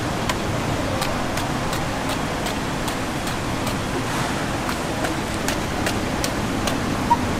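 Light, sharp ticks, about two to three a second, from a small knife cutting and prying the bulbs out of a halved jackfruit. They sit over a steady rushing background noise.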